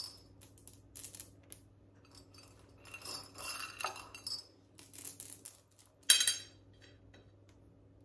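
Smarties and small biscuits clinking and rattling against a small ceramic bowl as they are picked out by hand, in scattered short clinks with a louder rattle about six seconds in.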